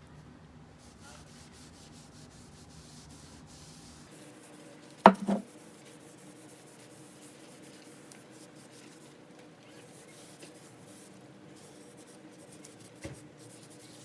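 Faint steady rubbing, with a sharp knock about five seconds in and a lighter one near the end.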